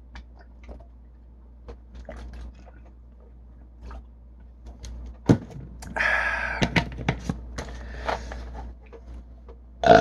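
Faint mouth clicks and gulps from a man drinking carbonated soda, then a short low burp about five seconds in. About a second later comes a longer, breathy burp brought on by the soda's fizz.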